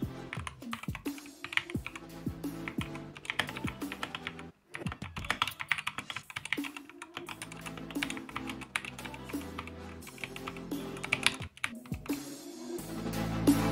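Typing on a Skyloong SK61 mechanical keyboard fitted with Gateron optical brown tactile switches: a fast, irregular stream of keystroke clicks and clacks, with a brief pause about a third of the way in.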